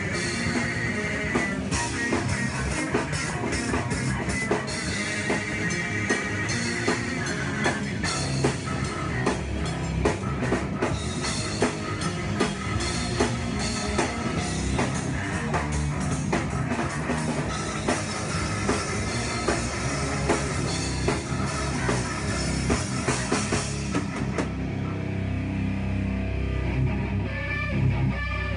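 A rock band playing live: drum kit with fast, busy drum and cymbal hits over electric guitar and bass guitar. About four-fifths through, the drums and cymbals drop out, leaving guitar and bass.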